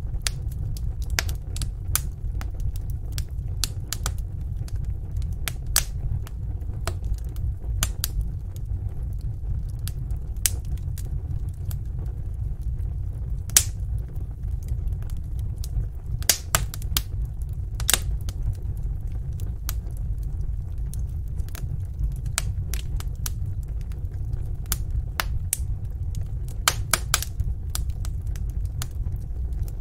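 Fire in a fireplace crackling, with irregular sharp pops and snaps, a few louder than the rest, over a steady low rumble of the flames.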